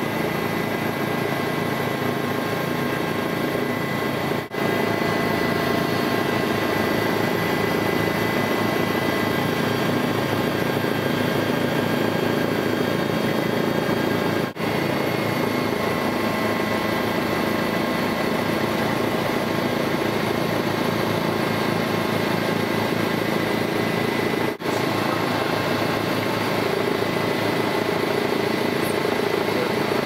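Helicopter engine and rotor noise heard from inside the cabin: a steady drone with a faint constant whine. It cuts out briefly three times, about ten seconds apart.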